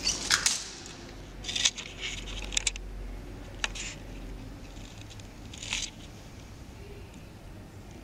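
Antique elevator's wrought-iron folding gate being worked by hand: sharp metal clicks and knocks at the start, a rattling metal clatter about a second and a half in, a single click a little after three and a half seconds and another short clatter near six seconds, over a steady low hum.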